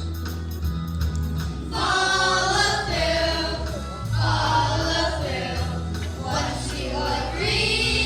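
A choir of children singing a song in unison over instrumental accompaniment, with a steady bass line under the sung phrases.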